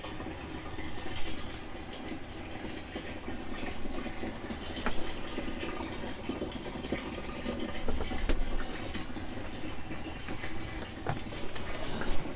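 Water from a hose pouring steadily into a camper van's fresh-water tank under a seat, with a few light knocks.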